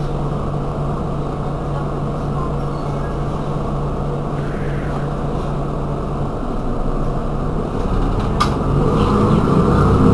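Mercedes-Benz Citaro G articulated bus engine idling steadily while the bus stands at a stop. A sharp click comes about eight seconds in, after which the engine grows louder.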